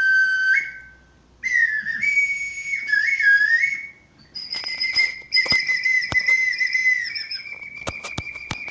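A small handheld mouth whistle blown in short phrases of clear notes that step up and down between a few pitches. Later comes a long held note with sharp clicks, which grow thick near the end.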